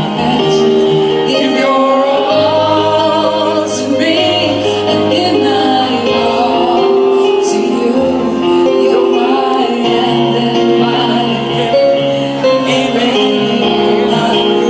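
A woman singing into a microphone, her voice amplified over an instrumental backing track with a steady bass line.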